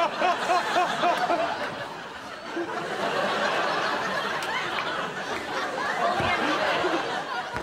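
Studio audience laughing. One person's rhythmic laugh stands out in the first second or so, over a dense crowd laugh that carries on.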